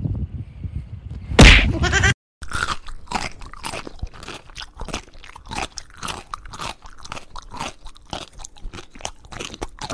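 A cat chewing at a sneaker, a run of short irregular crunches about two to three a second. Before it, about a second and a half in, comes one sudden loud noise.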